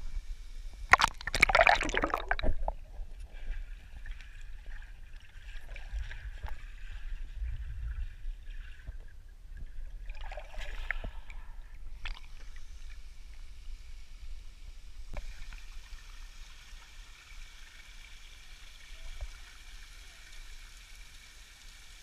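Water sloshing and splashing close to a camera held at the surface of a waterfall pool: a loud splash about a second in and another about ten seconds in. After that comes a steadier, even rush of water.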